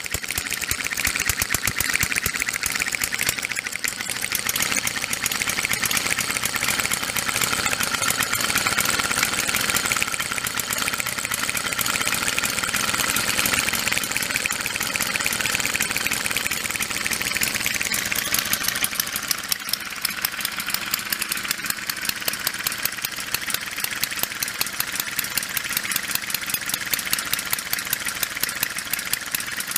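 Home-built inline twin four-stroke model engine, its valves mounted below the cylinders, running steadily as a fast, even run of sharp beats. About two-thirds through, the sound thins and the separate beats stand out more clearly.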